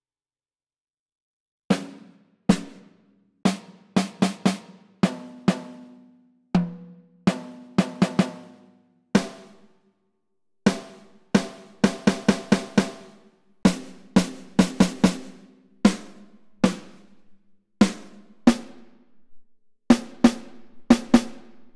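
Sampled snare drum hits from Superior Drummer 3's Core library, struck one at a time at an uneven pace as different snares are auditioned. Each hit rings briefly, and the pitch of the ring shifts from one snare to the next.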